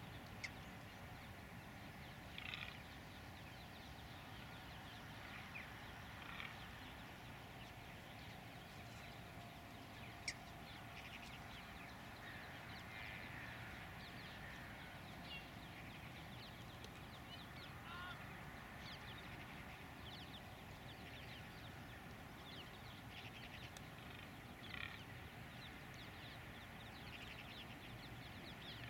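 Faint, scattered bird calls and chirps over a steady low outdoor background, with a single sharp click about ten seconds in.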